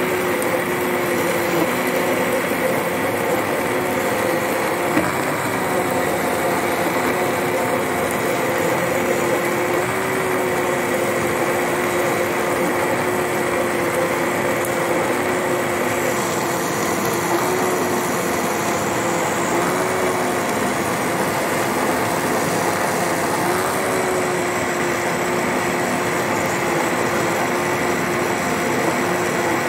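Electric blender running steadily at speed, blending a liquid milkshake with ice cream and chopped nuts; its motor gives an even, unbroken whine.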